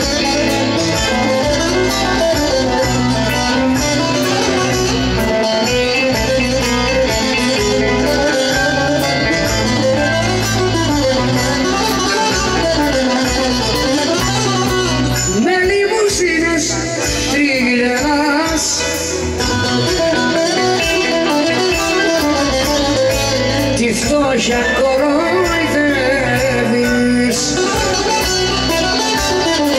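Live band music: bouzouki and guitars leading over keyboards, bass and drums, loud and continuous, with no lyrics picked up by the speech recogniser.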